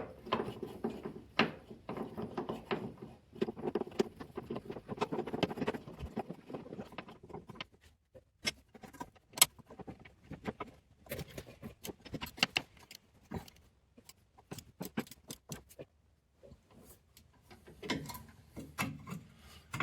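Hand tools working the bump stop's rusty 13 mm bolt, cleaned and copper-greased: first a steady rubbing and metal rattling as it is turned in, then a long run of sharp, irregular metallic clicks as a ratchet tightens it, with a little more rubbing near the end.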